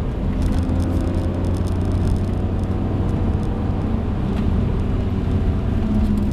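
BMW E46 M3's straight-six engine running steadily at speed, heard from inside the cabin.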